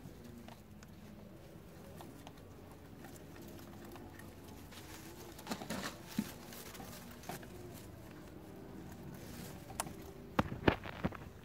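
Dry straw and grass stems of a baby rabbits' nest rustling and crackling in scattered short clicks, with a small cluster about halfway and the loudest, sharpest crackles near the end.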